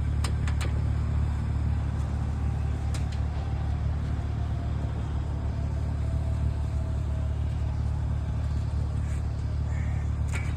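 Steady low rumble of an idling vehicle engine, with a few faint clicks and knocks.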